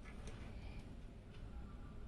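A few faint, light clicks and taps of computer parts being handled during PC assembly, over a low steady hum.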